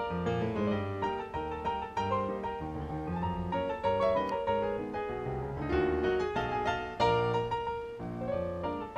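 Background piano music, a steady run of many notes with no pauses.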